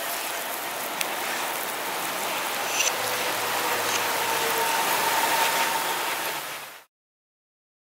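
Steady rushing noise with a few sharp clicks and a faint hum, cutting off to silence near the end.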